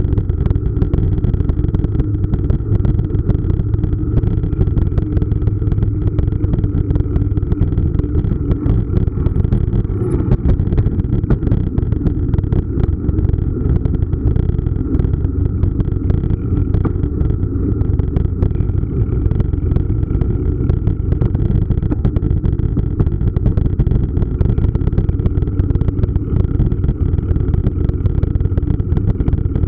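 Mountain bike rolling over paving stones, heard through a bike-mounted camera: a steady rumble with a dense, continuous rattle of small clicks, and wind on the microphone.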